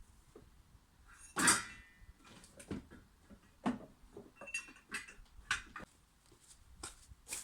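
Irregular knocks and clinks of hard objects being handled, the loudest about a second and a half in with a brief metallic ring.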